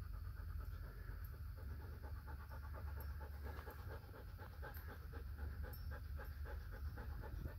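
Husky panting quickly and steadily close to the microphone, about four breaths a second, over a steady low rumble.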